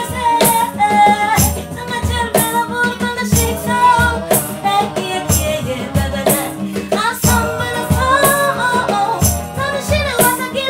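Acoustic band music: guitar, cajón beats and shaken maracas keeping a steady rhythm under a woman and a man singing.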